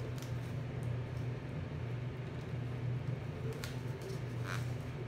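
A steady low mechanical hum, with two brief crinkles of paper and metallic gift wrap being pressed and handled, about three and a half and four and a half seconds in.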